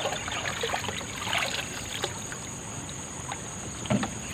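Water trickling and splashing with scattered light knocks as a bamboo-tube prawn trap is handled and tipped out, and a dull thump near the end. A steady high insect buzz runs underneath.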